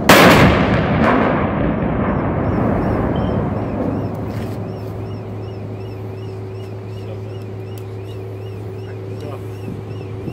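A ceremonial artillery salute: one loud blank-round volley from the salute guns right at the start, its boom echoing and rolling away over about four seconds. A steady low hum stays underneath.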